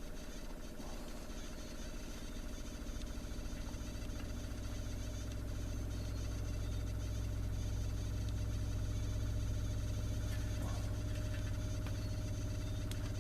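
A steady low hum that grows louder a few seconds in and then holds, with a few faint light clicks.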